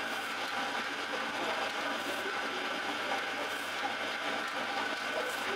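Spiral dough mixer running steadily as it kneads a large batch of bread dough, a continuous machine noise with a faint high whine.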